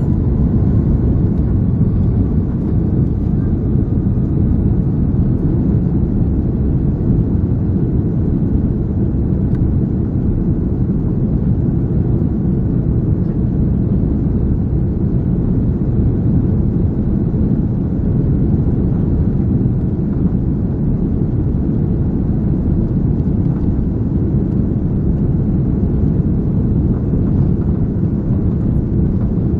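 Inside the cabin of an Airbus A330-300 on its takeoff roll: a loud, steady, deep rumble of the engines at takeoff power and the wheels running along the runway.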